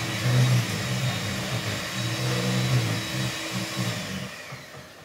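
Electric hand mixer running steadily as its beaters whisk pancake batter in a bowl. It stops about four seconds in.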